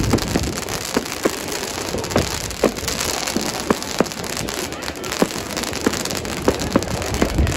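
Fireworks going off: sharp, irregular bangs several times a second over a dense, steady crackle.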